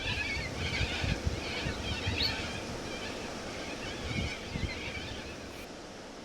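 Birds calling, many harsh, wavering calls overlapping, with wind buffeting the microphone; the calls stop about five and a half seconds in, leaving a steady hiss.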